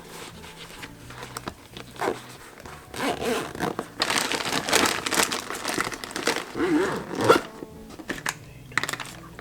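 Irregular rustling and crinkling handling noise, in bursts that grow louder in the middle.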